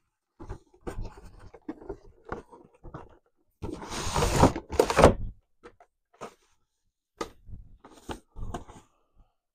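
Cardboard box and plastic blister packaging being handled: scattered taps and rustles, then about four seconds in a loud rustling scrape lasting a second and a half as the inner packaging is drawn out of the box, followed by a few light knocks.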